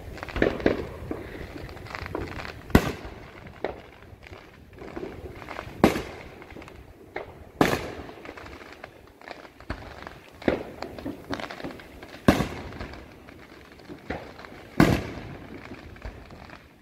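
Aerial fireworks bursting: five sharp bangs a few seconds apart, with fainter pops and crackling in between.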